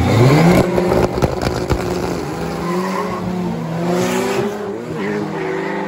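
Volkswagen Amarok pickup launching from a drag-strip start line and accelerating away. Its engine note rises as it pulls off, with sharp crackling ticks in the first couple of seconds, then holds steadier with slow swells in pitch.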